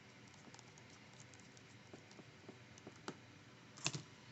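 Faint small ticks and clicks of a precision screwdriver driving the last bottom securing screw into an iPhone XR, with a sharper double click near the end.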